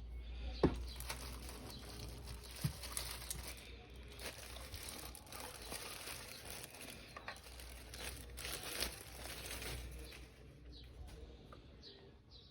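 Packaging crinkling and rustling as it is handled and unwrapped, with many small clicks and a couple of sharper knocks in the first few seconds.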